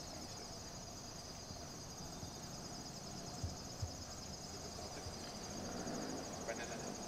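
Insects chirring in a steady, high, rapidly pulsing drone over faint outdoor background noise, with two soft low thumps around the middle.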